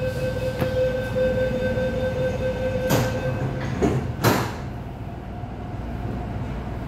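Door-closing warning on an MTR East Rail line mid-life-refurbished train: a steady warning tone for about three and a half seconds, then the sliding doors shut with two loud rushes about three and four seconds in. A low hum from the train continues underneath.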